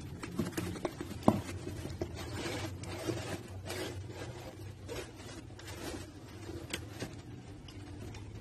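Cardboard shipping box handled and opened, the bathroom scale's retail box sliding out against the cardboard: irregular scraping and rubbing, with a sharp knock about a second in.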